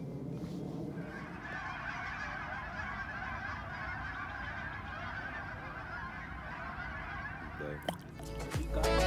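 A flock of geese honking, many calls overlapping in a continuous chatter. Near the end it cuts off and background music fades in.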